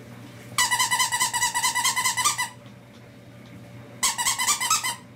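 A squeaky plush toy squeaking in two bursts of rapid, high, steady-pitched squeaks, the first about two seconds long, the second about a second later and shorter.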